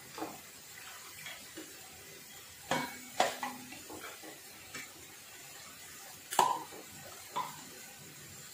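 Wooden spatula stirring a watery beef and potato curry in a metal pan, with a few sharp knocks of the spatula against the pan. The loudest knocks come about three and six seconds in.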